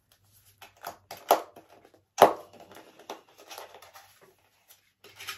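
Packaging of a small wireless in-ear monitor set being opened by hand: irregular rustling and crinkling with clicks, and two sharp snaps about one and two seconds in, the second the loudest.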